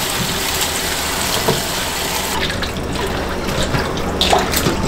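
Kitchen tap running into a stainless steel bowl of strawberries. A little over halfway through, the rush of water gives way to small splashes as hands swish the berries around in the water.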